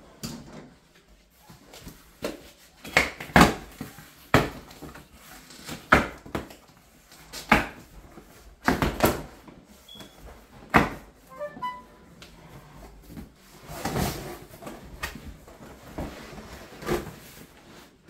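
Cardboard shipping box being opened and handled, with a series of irregular sharp knocks and scrapes of the cardboard and its flaps.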